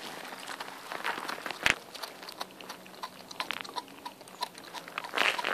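An Appenzeller Mountain Dog × Stabijhoun cross chewing and gnawing a piece of raw meat, with irregular clicks of teeth on the meat and one sharp, louder click about a second and a half in.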